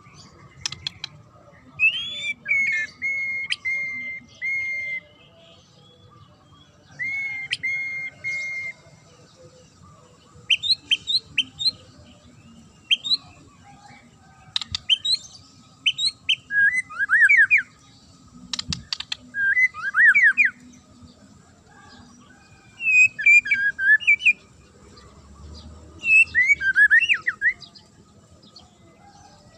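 White-rumped shama (murai batu) singing in separate varied phrases with short pauses between them. The phrases include a rising note that runs into a held whistle, quick runs of rising and falling sweeps, and sharp clicks.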